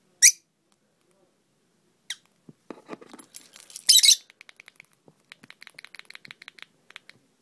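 Small pet parrot making short, sharp, high squeaks and then a fast chattering run of clicks, mixed with keys jingling. The loudest moments are a shriek just after the start and a noisy burst a few seconds in.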